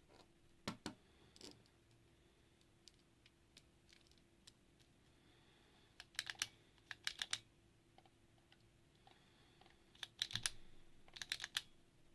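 Mechanical keyboard being typed on in short bursts of several quick key clicks, with pauses of a few seconds between bursts.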